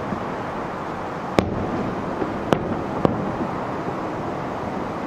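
Aerial firework shells bursting about 2.5 km away: three sharp bangs, the second and third close together, over a steady background hiss.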